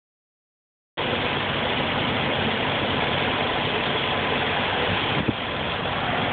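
Semi truck's engine idling, a steady drone that starts suddenly about a second in, with one short click about five seconds in.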